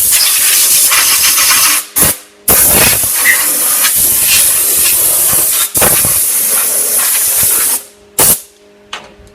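Compressed-air blow gun hissing in loud blasts that start and stop abruptly: three long blasts and a short one near the end, clearing hot steel chips from a freshly bored hole on a lathe. A steady lathe hum is left once the air stops.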